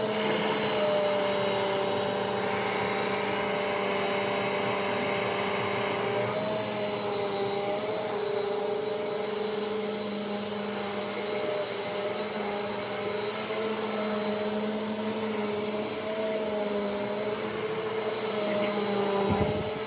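Eureka AirSpeed NEU100 upright vacuum cleaner running steadily, its motor tones wavering slightly in pitch as it is worked. A brief thump comes near the end.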